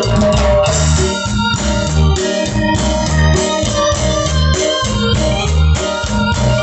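Band music played on electronic keyboard in an organ-like sound, over a steady repeating bass line.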